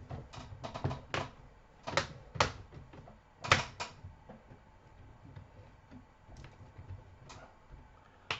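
Plastic clips of an Asus K55VD laptop's top case clicking as the case is pressed back onto the chassis: a flurry of sharp clicks over the first four seconds, then only a few faint ones.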